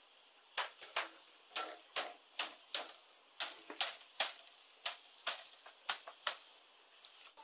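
Sharp taps and clicks of bamboo strips being knocked into place in a woven bamboo mat with a machete, about a dozen irregular taps, roughly two a second, stopping about a second before the end.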